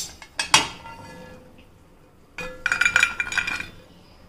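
Stainless steel cookware clinking: a sharp metal knock that rings briefly about half a second in, then a cluster of clinks and ringing as roasted cashews and pistachios are tipped into a small steel pot.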